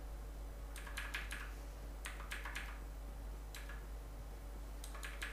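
Computer keyboard keys being pressed in short groups of quick clicks: a few about a second in, a few more around two seconds in, a single one in the middle, and another group near the end. A faint steady hum runs underneath.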